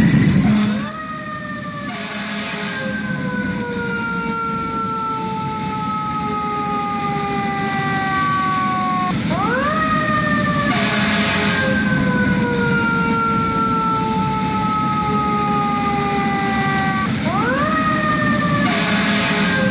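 Fire engine siren sounding a slow wail: three cycles, each rising quickly and falling slowly over about eight seconds, growing gradually louder, with a low engine rumble underneath. A short hiss comes about a second after each rise.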